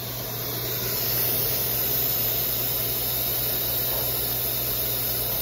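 Techno HDS CNC router lowering its spindle slowly onto the tool-length touch-off sensor during automatic tool measurement: a steady hiss over a low hum. The hiss swells over about the first second, then holds steady.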